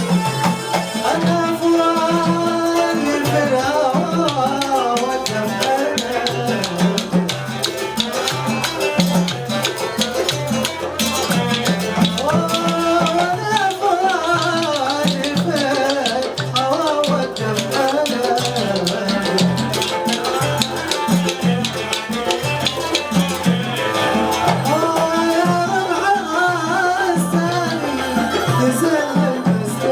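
Gulf Arabic (khaleeji) song music: a melody over a steady, repeating percussion beat with shaker-like rattle.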